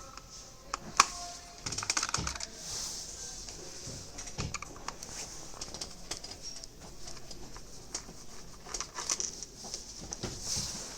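Irregular light clicks and taps, with one sharp click about a second in and a quick run of clicks about two seconds in.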